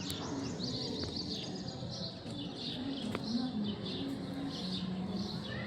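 Small birds chirping over and over, high-pitched, with a few faint sharp clicks in between.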